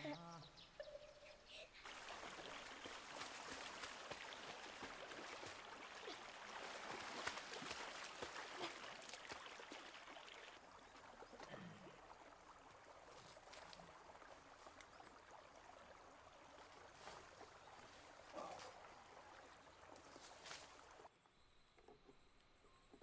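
Soft, even rush of stream water with light rustling and small clicks in the undergrowth. Near the end it gives way to a much quieter evening ambience with a thin, steady high-pitched hum.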